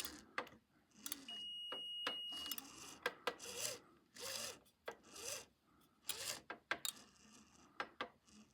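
A continuity tester's steady high tone sounds for about a second near the start, signalling that the micro switch arm has dropped into the gap on the program cam and closed the switch. After it come rasping rubs and sharp clicks as the Rock-Ola 1448 program assembly is handled and turned.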